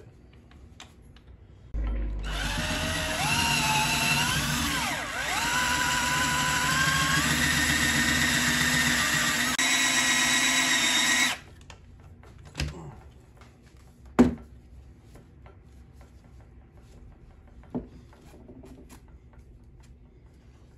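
Cordless hand drill with a spade bit boring the thumb hole into a bowling ball. It runs for about nine seconds with its whine wavering in pitch under load, then stops. A few sharp knocks follow as the drill and ball are handled on the counter, the loudest of them a couple of seconds after the drill stops.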